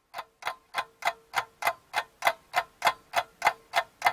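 Clock ticking quickly and evenly, about three ticks a second, growing louder over the first two seconds.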